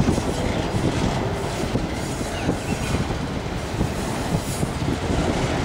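Freight train's autorack cars rolling slowly past at about 15 mph, steel wheels rumbling and clattering on the rails.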